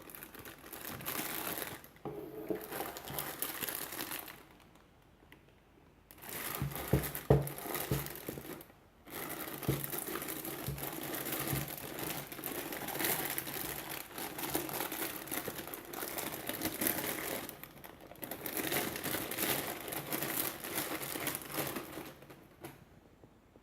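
Packaging crinkling and rustling as a mask is unboxed by hand, in several stretches with short pauses, with a few sharper knocks about seven seconds in.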